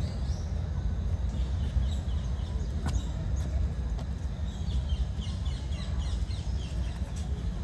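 Small birds chirping in quick, repeated high notes, thickest through the middle of the stretch, over a steady low rumble, with one sharp click about three seconds in.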